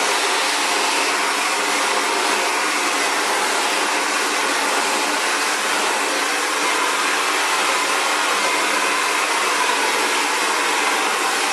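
Xtava Allure 2200-watt ionic ceramic hair dryer running steadily: an even rush of blown air over a faint motor hum.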